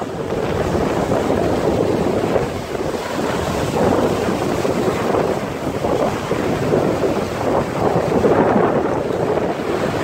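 Sea surf breaking and washing over shoreline rocks, mixed with wind buffeting the microphone: a continuous rushing noise that swells and eases.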